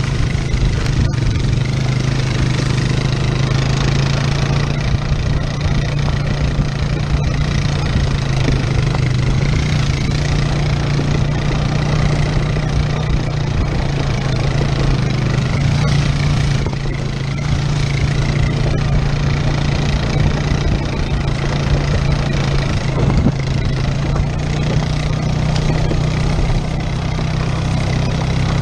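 Four-wheeler ATV engine running at a steady low pace while it tows a dirt bike on a strap, heard from the towed bike with a constant low drone over rough trail noise.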